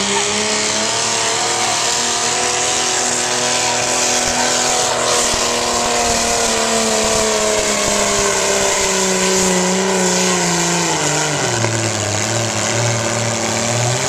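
Naturally aspirated super stock pulling tractor's engine running flat out under the load of a weight-transfer sled, its pitch sagging slowly as the pull goes on. About eleven seconds in, the engine speed drops sharply and it runs on at a lower pitch as the pull ends.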